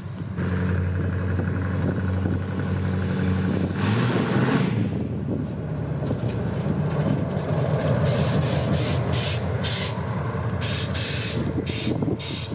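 Lifted 2001 Ford F-150 with long-tube headers and no catalytic converters or mufflers driving past, its open exhaust loud and rough. A burst of hiss comes about four seconds in, and a run of short hissing bursts near the end.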